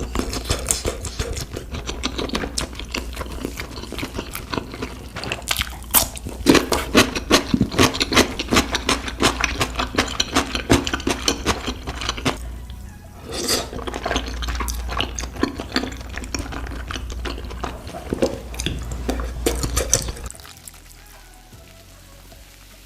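Close-miked eating sounds: wet chewing and slurping with many quick clicks, over background music. It drops off sharply near the end.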